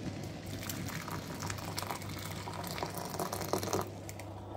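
Freshly boiled water being poured onto saffron threads: a steady pouring, filling sound that stops near the end.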